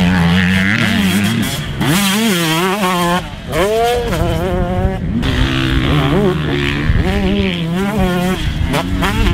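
2019 KTM 125SX's 125cc single-cylinder two-stroke engine being ridden hard, revving up and down with the throttle. It drops off briefly twice and then sweeps sharply back up just before four seconds in.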